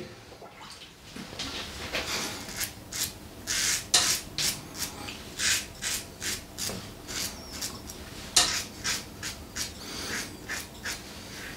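Stainless-steel double-edge safety razor (Alpha Outlaw Evolution) scraping lathered stubble off the neck in a run of short, rasping strokes, about two a second.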